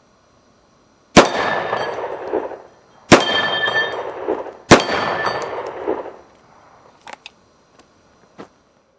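Three shots from a Ruger SR-1911 Commander .45 ACP pistol, each followed by a ringing tail that dies away over about a second. A few faint clicks follow near the end.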